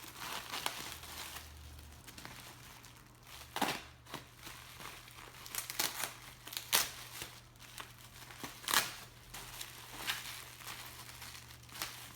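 Packaging crinkling and rustling as a piece is unwrapped by hand, with a few sharp crackles standing out from the steady rustle.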